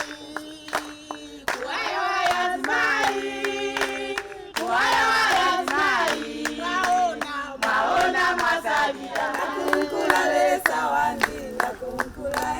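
A group of voices singing together, accompanied by repeated hand clapping.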